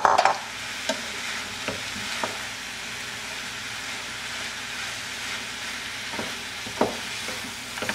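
Spaghetti squash and vegetables sizzling in a pan on the stove while a wooden spoon stirs and tosses them: a steady hiss with a few sharp knocks of the spoon against the pan.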